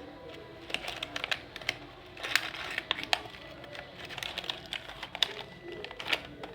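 Packaging being opened and handled by hand: irregular clicks, taps and crinkling.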